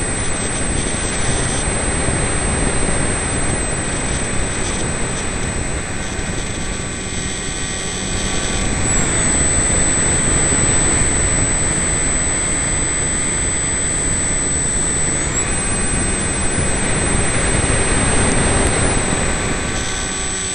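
A model aircraft's motor and propeller running in flight, heard from a camera mounted on the plane: a steady high whine over heavy wind rush on the microphone. The whine dips slightly in pitch about nine seconds in and rises back about six seconds later.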